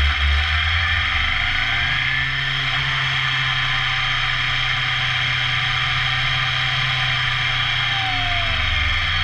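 2014 BMW S1000R's inline-four engine running while the bike rides, its pitch rising over the first couple of seconds and falling near the end, under heavy wind rumble on the bike-mounted microphone.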